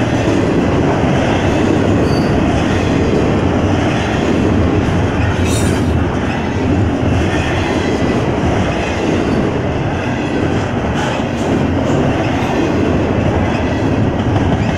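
Double-stack intermodal freight cars rolling past at speed, a loud steady rumble and rattle of steel wheels on rail, with a brief high screech about halfway through.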